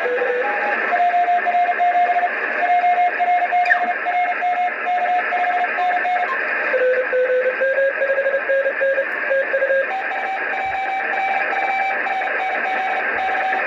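Morse code (CW) tones in a transceiver's receive audio from the RS-44 satellite downlink, keyed on and off over a steady bed of receiver hiss. The tone jumps between pitches every few seconds as different signals come through, one drifting slightly upward.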